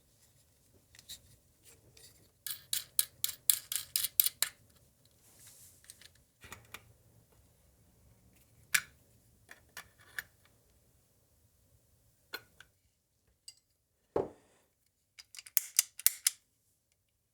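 Small hardware being put together by hand: two quick runs of light clicks and taps, scattered single clicks, and a soft thump near the end.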